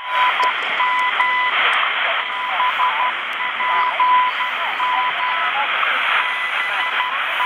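HanRongDa HDR-747 receiver's speaker playing shortwave reception on 15.000 MHz, the frequency shared by the WWVH and BPM standard time-signal stations: dense hiss and static with a 1 kHz tone that comes and goes in broken pulses.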